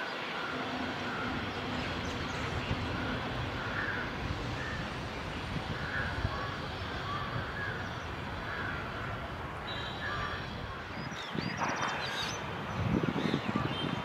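Steady outdoor background noise with faint, short bird calls repeating about once or twice a second. Higher chirps come in around ten seconds in, and a low rumble near the end.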